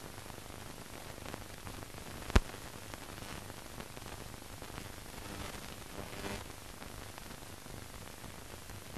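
Steady hiss of an old newsreel's film soundtrack, with one sharp pop about two and a half seconds in.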